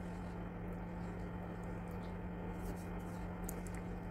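Silicone spatula stirring thin dal in a pan, with faint wet squishing and a few small clicks about three seconds in, over a steady low hum.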